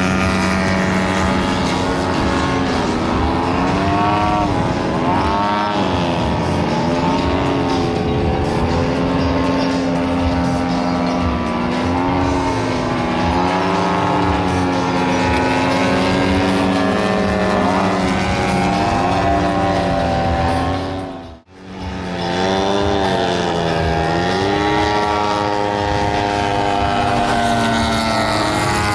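Large gasoline engine of a radio-controlled aerobatic biplane in flight. Its pitch rises and falls smoothly as the throttle changes and the plane passes. The sound drops out briefly about 21 seconds in.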